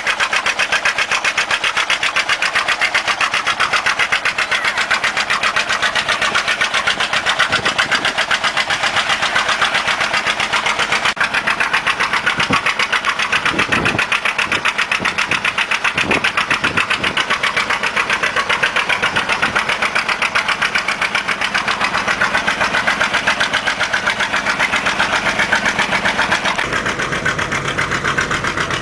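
Engine running steadily with a fast, even beat of firing pulses.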